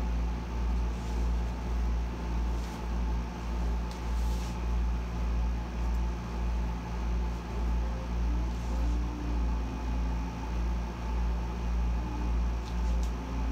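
Air conditioner running on full blast: a steady hum with a low throb that pulses a little more than once a second.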